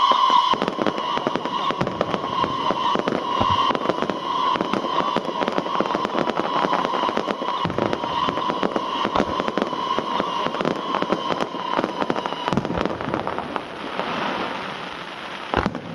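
Fireworks display: dense rapid crackling and popping, with a steady high whistle running underneath that stops about twelve seconds in. Near the end the crackle thins into a hiss, and then there is one sharp bang.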